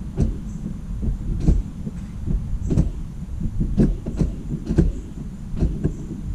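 Irregular knocks and clunks, about ten of them spread unevenly, over a steady low rumble: parts being handled inside a car.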